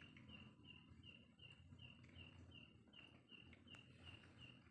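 Faint insect chirping, evenly spaced at about three chirps a second, over near silence.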